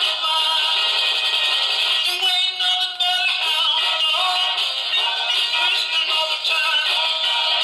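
A vinyl record of a sung song playing on a homemade turntable, heard through a portable cassette boombox wired up as its amplifier and speaker. The sound is thin and tinny, with no bass.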